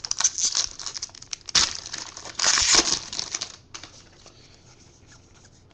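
Trading cards being flipped through by hand: quick clicks and snaps of card stock, with a louder rustle from about two and a half to three and a half seconds in, then quieter handling.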